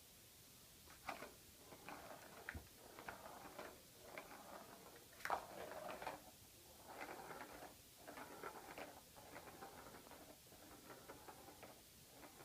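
Plastic ball rolling and rattling around a cat's ball-track toy as the cat bats at it: uneven runs of faint clatter and clicks starting about a second in, with one louder knock a little before the middle.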